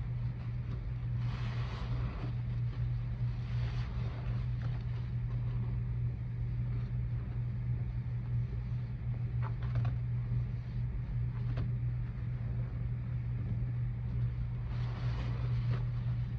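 Soaked sponges squelching and thick soap suds crackling as gloved hands squeeze them, in a few separate squishes about a second in, around four seconds in and near the end. A steady low hum runs underneath throughout.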